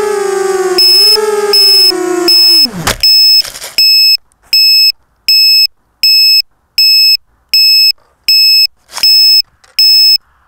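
ZMR250 quadcopter's Emax MT1806 brushless motors and Gemfan 5030 propellers whining, the pitch wavering, then spooling down and stopping about three seconds in as the craft comes down in the grass. A high electronic beep starts about a second in and repeats steadily, about once every 0.7 s.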